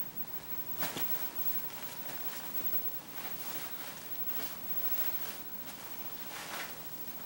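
Fabric rustling and soft bumps as a toddler clambers over couch cushions and throw pillows, with a louder scuffle about a second in and another near the end.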